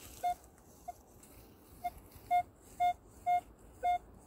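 Minelab Equinox 600 metal detector beeping as its coil passes back and forth over a buried target: short tones of the same pitch, a few faint ones at first, then regular at about two a second from about two seconds in.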